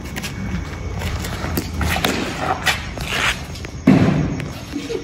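Footsteps and scuffing on a concrete street, with a few sharp knocks and a louder thud about four seconds in.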